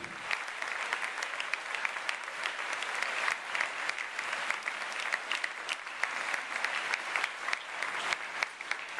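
Large audience applauding, many hands clapping at once.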